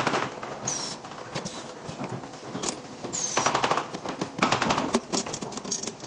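Thin aluminum radiator-core parts clattering and rattling against each other and a steel assembly jig as gloved hands pack and tap them into place, in bursts of rapid metallic clicks. Two brief high squeaks cut in, about a second in and again a little past three seconds.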